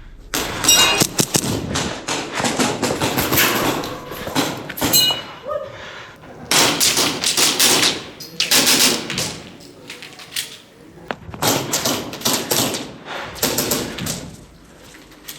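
Airsoft guns firing in repeated rapid volleys of sharp cracks, each lasting one to several seconds, with short lulls between them.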